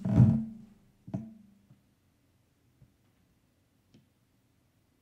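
Handling noise from an AR-15 rifle held in the shoulder on its bipod on a wooden table: a thump at the start, a sharp knock about a second in, then a few faint ticks and otherwise quiet while he holds the aim.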